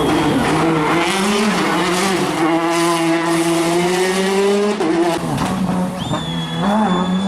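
Rally car engine running hard at high revs with tyres squealing. The engine pitch dips about five seconds in and climbs again, and a high steady squeal sets in near the end.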